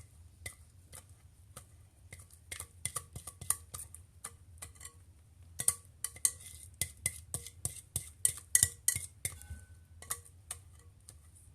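A utensil repeatedly clinking and scraping against a dish as batter is spooned into a pie pan. The clicks are sharp and irregular, each with a slight ring, and pause briefly twice.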